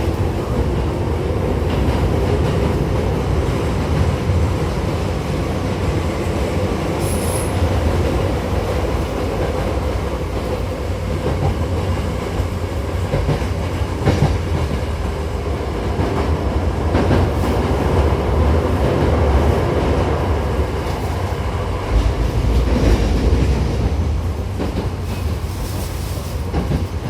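Hankyu 7000-series electric commuter train running between stations, heard from inside the car by a door: a steady rumble of wheels on rail, with a few sharp clacks over rail joints.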